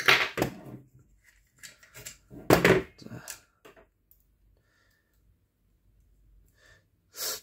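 Small clicks and taps of a metal pin and tool being worked out of an airsoft M16A1 electric gun's lower receiver, with one louder tap about two and a half seconds in.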